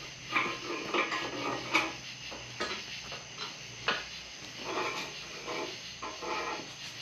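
Metal engine parts and hand tools clinking and clattering as they are handled and set down, a series of separate sharp clicks and short rattles.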